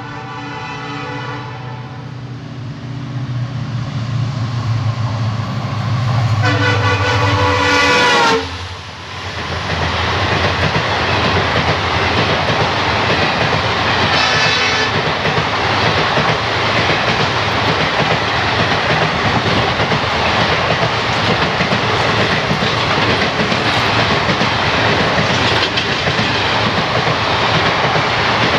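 WDP4D diesel locomotive passing at speed, sounding its horn: a brief blast at first, then a long loud blast that cuts off as the locomotive goes by about eight seconds in, its low engine drone growing louder until then. The express coaches follow with a steady rush and clickety-clack of wheels over rail joints, and a short horn note sounds again at about fourteen seconds.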